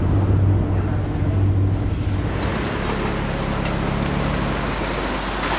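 A boat's outboard motor running with the boat under way, over wind and rushing water. The engine's steady low hum is plain for about two seconds, then a louder rush of wind and spray covers it.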